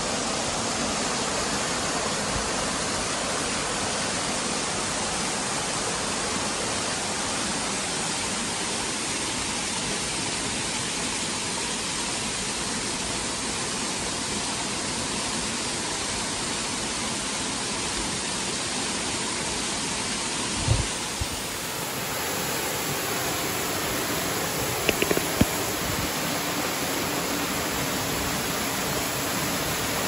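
Waterfall and its stream rushing steadily, an even wash of falling water. A brief low thump comes about two-thirds of the way in, and a few faint clicks follow a few seconds later.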